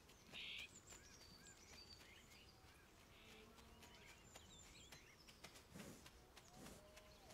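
Faint outdoor ambience: small birds chirping again and again, with a short noisy rasp about half a second in.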